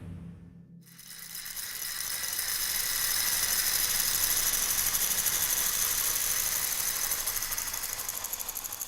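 A fast, steady mechanical rattle that fades in about a second in and builds over a couple of seconds before holding level.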